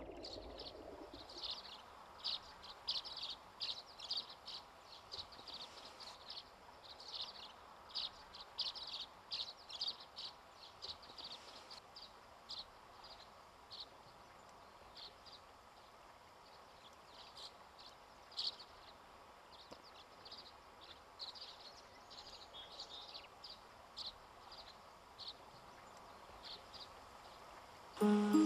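Birds chirping in many short, high, irregular calls over a faint steady background hiss. Music comes in just before the end.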